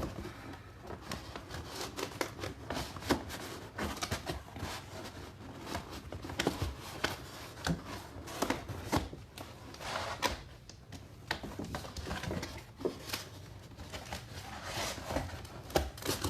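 Cardboard box and corrugated cardboard liner being handled and pulled apart, with irregular rustles, scrapes and light knocks.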